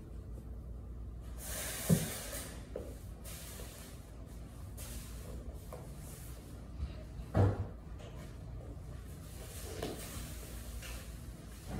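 Cloth rustling as a person shifts about on the floor getting dressed, with two dull thumps, one about two seconds in and a louder one past the middle, over a low steady hum.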